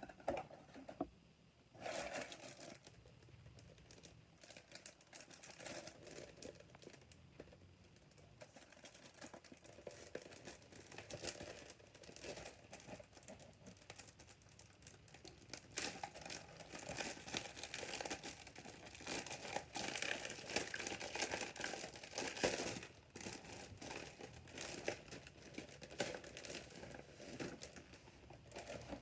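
Plastic packaging of a Gundam model kit crinkling and tearing as it is handled and opened, with irregular crackles that get busier around the middle.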